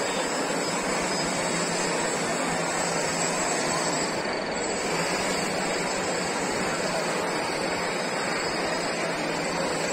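Small quadcopter drone's propellers whirring steadily in flight.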